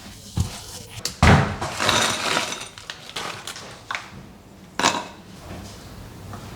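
Knocks and clatters of objects being handled, with a longer rushing scrape about a second in and a few sharp knocks later.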